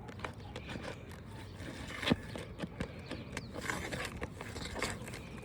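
Slender pry bar working under asphalt three-tab roof shingles, breaking their seals and loosening the nails: scattered scrapes and clicks, the sharpest about two seconds in.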